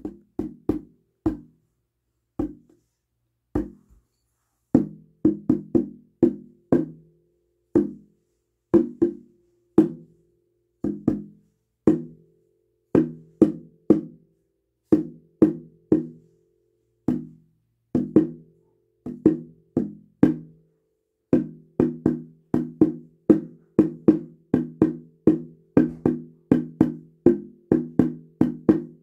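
Mushroom mycelium drum, a small laced hand drum, beaten with a stick in a rhythm of low, pitched thuds. A few scattered strokes open the passage, then the playing settles into a steady beat that grows faster and denser near the end.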